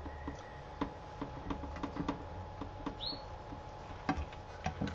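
A large spoon scraping and tapping in a coated frying pan as cooked spinach rice is scooped out: a string of irregular light clicks and scrapes, with one brief high squeak about three seconds in.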